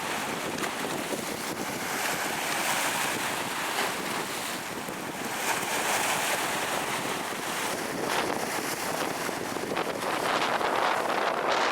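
Strong storm wind gusting across the microphone, mixed with surf, swelling louder about two seconds in and again near the end.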